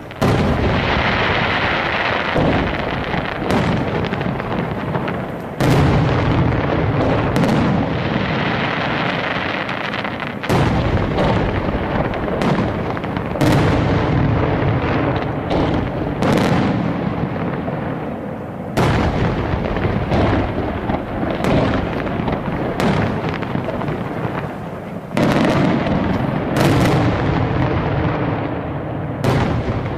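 Aerial firework shells bursting in a display. Sharp bangs come every few seconds, each trailing off into an echoing, noisy din that carries on between the bursts.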